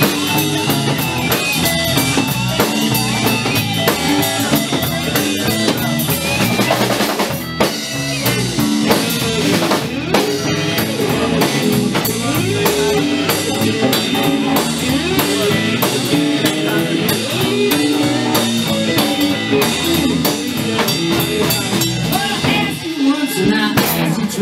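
Live blues band playing: electric guitars over a drum kit.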